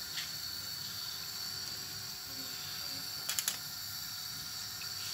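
A few quick light clicks of a metal utensil against the chicken-roasting tray, about three and a half seconds in, over a steady faint hiss.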